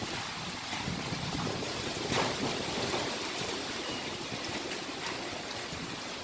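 Typhoon wind blowing hard and gusting, with a brief louder burst about two seconds in.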